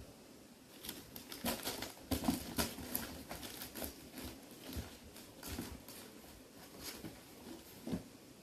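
Kittens moving about on cardboard boxes and at steel food bowls of dry kibble: irregular light taps, scratches and rustles, starting about a second in.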